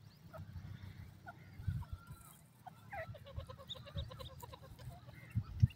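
Francolin (teetar) chicks calling with short, thin peeping notes, then a fast run of repeated peeps in the second half. A low rumble sits under them and swells into a few loud low thumps near the end.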